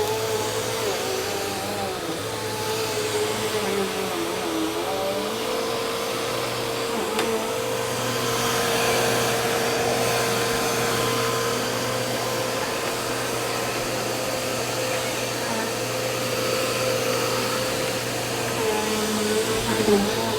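Vacuum cleaner running steadily, a continuous motor whine over a low hum.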